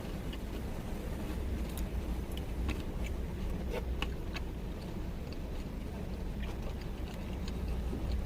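Someone chewing and crunching food, heard as scattered small clicks, over a steady low rumble inside a van.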